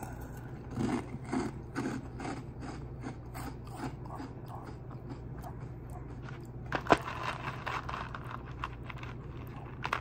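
Dry Oreo O's cereal being crunched and chewed, a run of crackly crunches about three a second. A single sharp click comes about seven seconds in.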